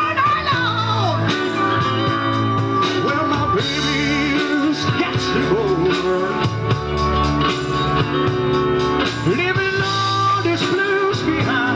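Live rock band playing on stage: electric guitar, drums and keyboards, with a voice singing over the band.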